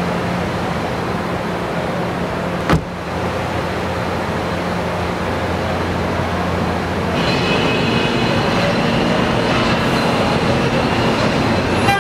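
Car assembly plant machinery: a steady hum and hiss with a single sharp click a little under three seconds in, and higher whining tones joining about seven seconds in.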